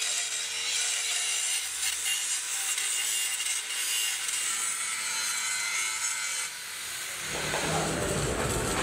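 Handheld angle grinder grinding into the worn steel teeth along an excavator bucket's lip, a steady high-pitched grinding hiss. About seven seconds in the grinding stops and a different, lower-pitched noise takes over.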